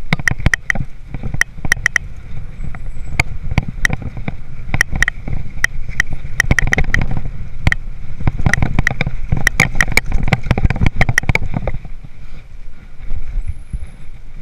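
Hardtail mountain bike (a 2013 Haro Flightline Sport 26er) riding over rough, rocky trail: frequent sharp metallic clicks and rattles, like chain slap and the frame jolting, over a low rumble of tyres and wind. The rattling comes thick and irregular and thins out about three seconds before the end.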